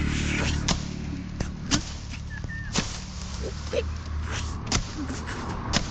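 Small two-stroke engine of a 3-in-1 brush cutter running at a low, steady idle, its hum dipping in the middle and swelling again near the end. Irregular sharp snaps and clicks, like twigs and branches breaking, sound over it.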